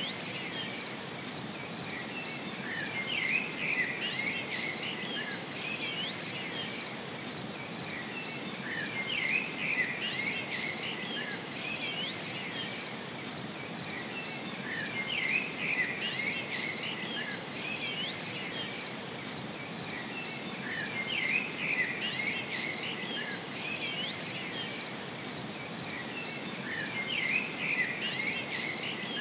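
Nature ambience: a cricket chirping steadily in an even pulsing rhythm, with bursts of bird twittering that come back about every six seconds.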